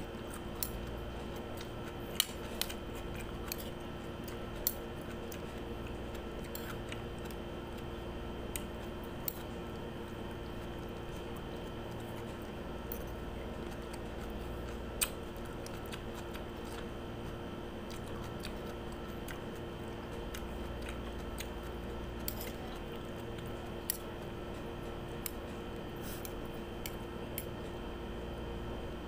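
Scattered sharp clicks of a metal spoon against a bowl and crisp bites into raw cucumber slices being eaten, over a steady low hum.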